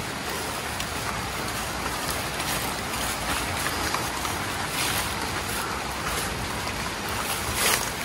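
Steady rushing of river water, an even noise with no rhythm, with a short louder swish near the end.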